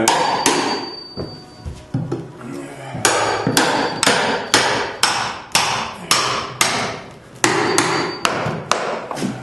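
Hammer blows on wooden floorboards being taken up for salvage, a steady beat of about two strikes a second, each with a short ring. There are a couple of single blows first, then the steady run begins about three seconds in.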